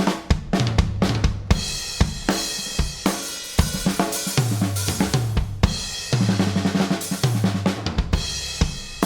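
Rock drum kit played with a bass guitar: a quick run of hits on the drums, then crash cymbals ringing over kick, snare and a stepping bass line.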